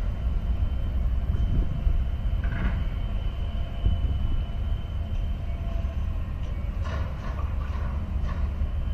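Steady low harbour rumble from a large container ship and port machinery in the distance, with faint steady hums above it and a few faint brief sounds about two and a half seconds in and near the end.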